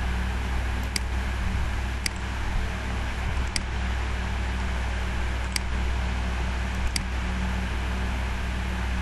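Computer mouse clicking five times at uneven intervals: short, sharp clicks. Under them a steady low hum and hiss of background noise is picked up by an open microphone.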